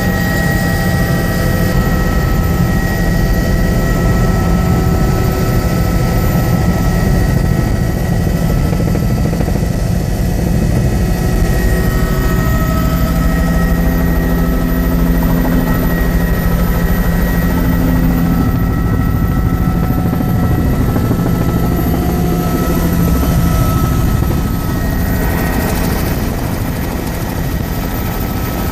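Helicopter in flight: a steady rapid rotor beat under a constant high whine, loud and unbroken, easing slightly near the end.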